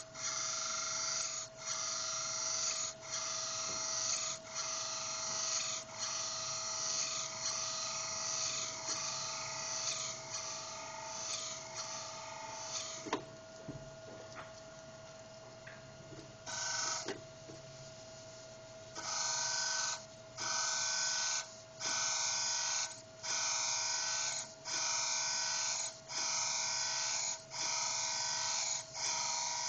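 Cam grinding machine's abrasive wheel grinding a lobe of a Honda SOHC VTEC camshaft: a steady grinding hiss over a constant whine, dipping briefly about every one and a half seconds as the cam turns. It eases off to a quieter run for several seconds midway, then the same rhythmic grinding resumes.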